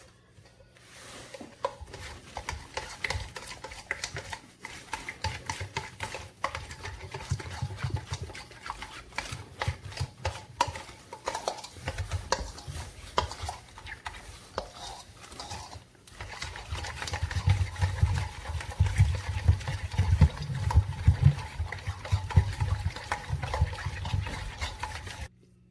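A spoon stirring and scraping a thick yogurt-and-spice marinade around a bowl, with a steady run of small irregular clicks and scrapes.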